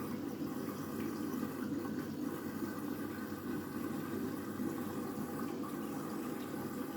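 Candy washing machine taking in water, a steady rushing and sloshing as the drum fills for the main wash.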